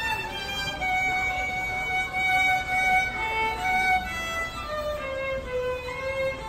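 Violin bowed by Toyota's violin-playing Partner Robot: a slow melody of long held notes that steps down in pitch near the end.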